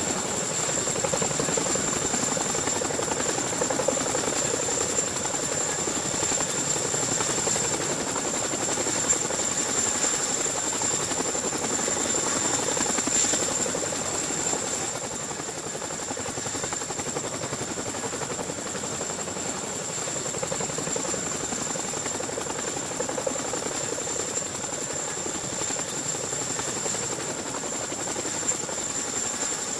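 CH-47 Chinook tandem-rotor helicopter hovering low overhead, a loud steady rotor and engine noise with a high turbine whine through it, easing slightly about halfway through.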